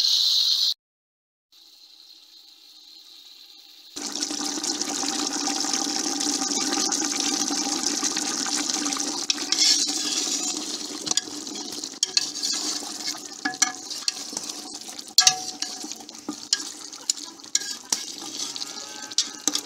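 Mutton pieces frying in hot oil in a pressure cooker pot while being stirred: a steady sizzle grows loud a few seconds in, then turns to crackling with many sharp pops from about halfway through.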